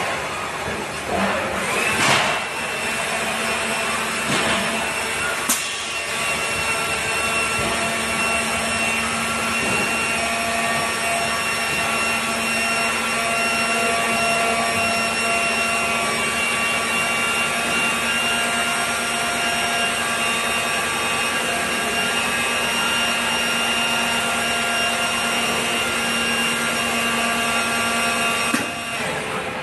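Trolley fire extinguisher filling machine running steadily through a fill cycle: a steady mechanical whine with several held tones. A few knocks come in the first few seconds, and the running sound drops off shortly before the end.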